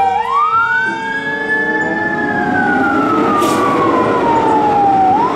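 Fire engine siren wailing: one long rise, a hold, then a slow fall, starting to rise again near the end, over the fire truck's engine noise.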